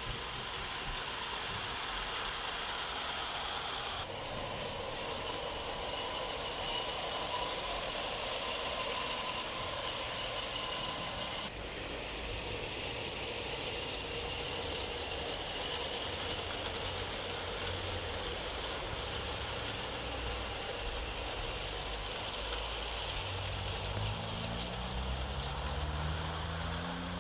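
Garden-railway model train running on outdoor track: a steady whirring whine from the locomotives' electric motors and rolling wheels. The sound shifts abruptly about 4 and 12 seconds in, and near the end a low hum rises in pitch.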